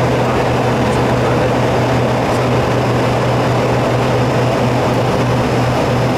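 Steady cockpit noise of an aircraft in flight on approach: an even rushing hiss over a constant low hum.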